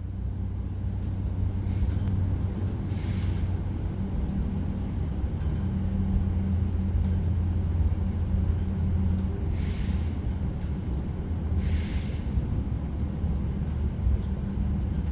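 Koleje Mazowieckie regional train heard from on board while it runs, giving a steady low hum and rumble. A few short hisses of air break through, about three seconds in and twice near ten to twelve seconds.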